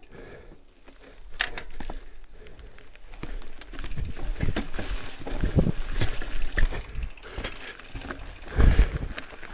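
Mountain bike riding down a forest singletrack: tyres rolling over dirt and rock, with the bike knocking and rattling over bumps at an uneven rate, and a heavy thump near the end.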